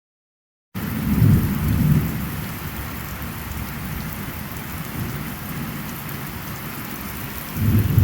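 Heavy thunderstorm rain pouring steadily, cutting in abruptly just under a second in, with low rumbles of thunder swelling about a second in and again near the end.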